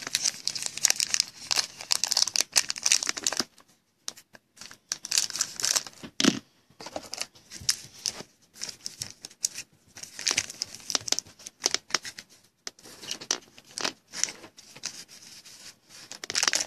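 Foil wrapper of a Panini Prizm football card pack being torn open and crinkled, in several bursts of crackling with short pauses between.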